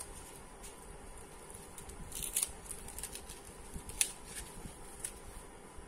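Hands handling and unwinding a roll of satin ribbon over cotton fabric: a handful of soft clicks and rustles, the loudest about two seconds in and again at four seconds.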